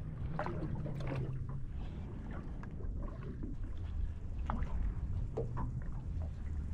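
Low rumble of wind and water against a small aluminium boat's hull, with scattered light ticks and splashes.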